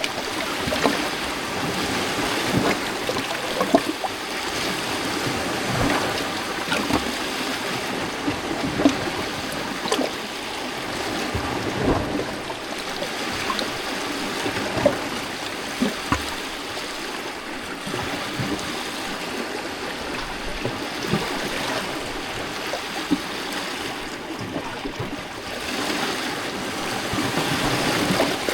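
Small lake waves washing against a rocky shore: a steady wash of water broken by frequent short, sharp splashes against the rocks, every second or few.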